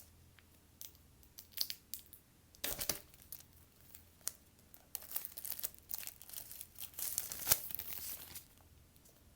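Packaging on a small product box being torn open with its pull tab: crackling tearing and rustling in short spells, busiest in the second half and dying away about a second before the end.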